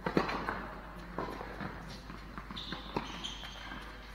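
Tennis rally in a large indoor hall: a handful of sharp pops of racket on ball and ball bouncing on the court, echoing. The loudest pop comes just after the start.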